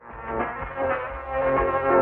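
Background music with a sustained melody, starting abruptly at a cut.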